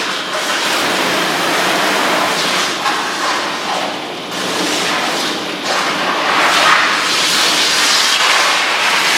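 Davis ProPet dog-washing machine running, spraying shampoo-laced water onto a small dog's coat: a loud, steady hiss of spraying and splashing water that dips slightly about four seconds in and swells again near the end.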